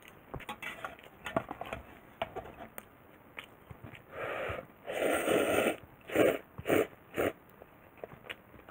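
Ramen noodles slurped with chopsticks from an aluminium mess tin. A few light clicks of the chopsticks come first, then slurping starts about four seconds in: the longest and loudest slurp is around the five-second mark, followed by three short ones.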